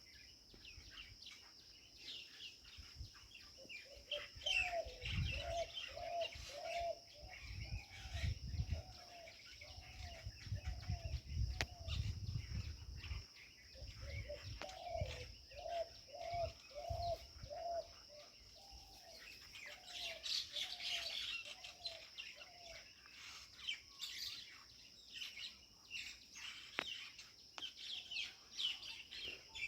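Birds chirping and calling from a tree, with one bird repeating a lower call about twice a second in two long runs, over a steady high-pitched drone. Gusts of low rumble come and go in the first half.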